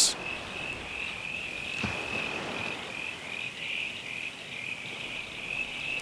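Crickets chirping in a steady, high, pulsing trill.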